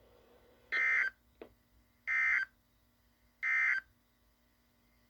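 Emergency Alert System end-of-message code: three short, identical bursts of warbling digital data tones about a second and a half apart, marking the close of the alert.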